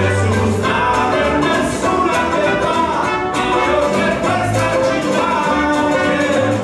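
Live acoustic band playing a song: banjo and acoustic guitar strumming, a trumpet line and upright double bass, with two men singing.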